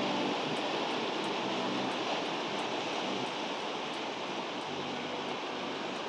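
Ocean surf breaking and surging among shoreline rocks: a steady rushing wash of water.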